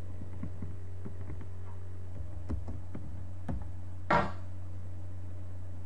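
Soft, scattered clicks of a computer mouse and keyboard while drafting in CAD software, with one short, louder sound about four seconds in, over a steady low hum.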